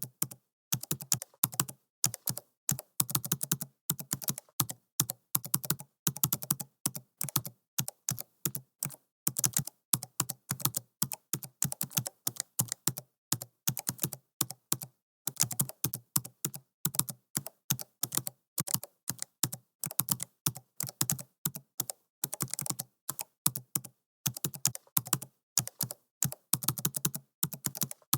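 Computer keyboard typing at an unhurried pace: runs of sharp key clicks, several a second, broken by short pauses.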